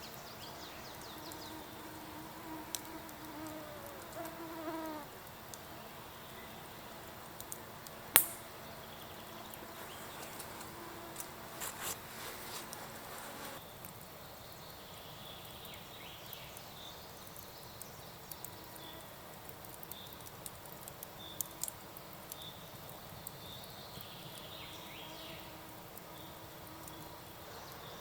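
A fly buzzing close by, its pitch wavering and growing louder before it breaks off about five seconds in. There is a single sharp snap about eight seconds in and a few light clicks. Later a series of short high chirps repeats about once a second over quiet forest background.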